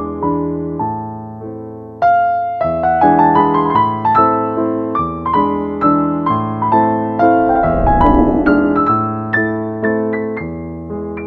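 Background piano music: a slow melody of single struck notes over held chords, with a new chord struck firmly about two seconds in.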